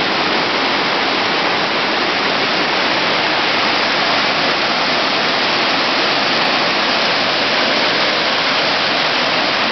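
Whitewater of a high class III river rapid rushing steadily as the current pours between large boulders.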